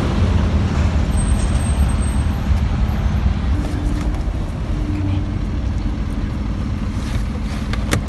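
Steady low rumble of an idling vehicle engine, with a few sharp knocks near the end as a plastic pet travel carrier is pushed into a car.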